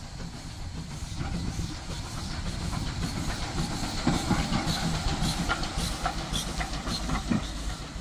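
1916 Hudswell Clarke saddle-tank steam locomotive running slowly past, steam hissing with clicks and clanks from its wheels and motion. It grows louder to a peak about four to five seconds in, then eases off.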